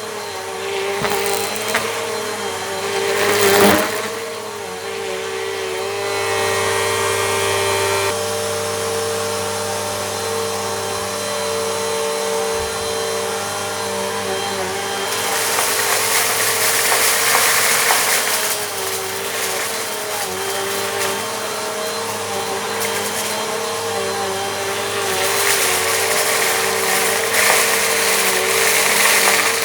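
A Bissell Compact vacuum cleaner running steadily on a rug, sucking up crunchy grit with clicks and crackles in the first few seconds. The suction hiss swells about halfway through and again near the end as passes are made.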